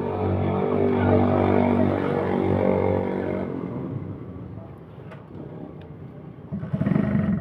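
A nearby motor vehicle engine runs with a steady hum, then fades away over a few seconds. Near the end a second, rougher engine sound comes in.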